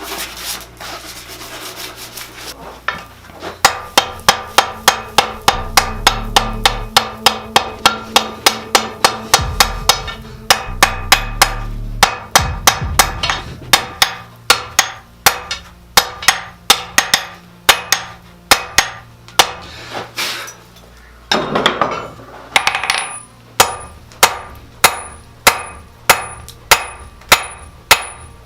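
Blacksmith's hammer striking steel on an anvil in a steady series of ringing blows, about three a second, with a short break partway through.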